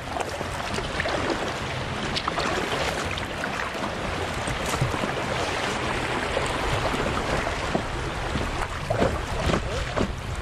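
River water splashing around an inflatable kayak as it is paddled through a narrow channel: a steady wash of water noise with a few sharper splashes.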